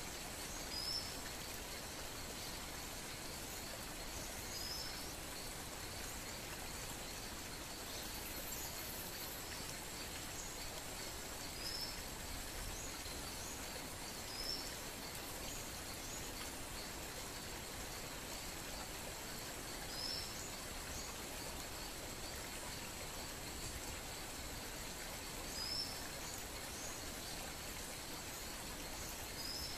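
Faint, steady outdoor background hiss with a thin steady high tone, and a short high bird chirp repeating every few seconds.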